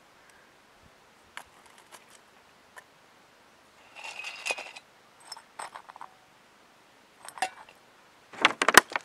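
Metal camping cookware being handled on rock: scattered light clicks, a scraping rattle about four seconds in as the gas canister with its stove on top is lifted, and a cluster of louder metallic clinks near the end.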